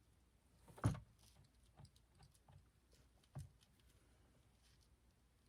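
Faint handling noises as kayak outfitting is worked by hand: a soft knock about a second in, another past the middle, and light scattered clicks and rustles between them.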